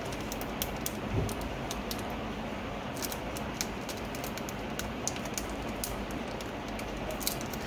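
Light, irregular clicks and crinkles of a paper sticker sheet being handled and peeled by hand, over a steady background hiss.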